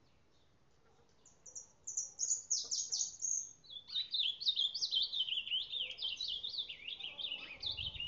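Ultramarine grosbeak (reina mora) singing a fast, warbling song of quick downward-sweeping notes, starting about a second in.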